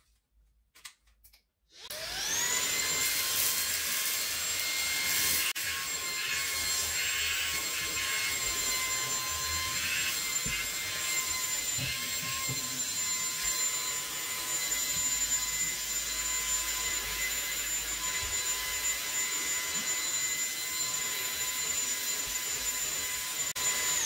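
YOKEKON cordless handheld vacuum cleaner's brushless motor switching on about two seconds in, spinning up quickly to a steady high whine over a rush of air. The nozzle and motorised brush are drawn over fabric sofa upholstery.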